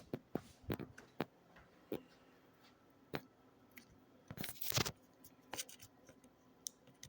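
Scattered sharp clicks, scuffs and soft knocks of someone moving and handling gear, with a longer rustling scrape about four and a half seconds in that is the loudest sound.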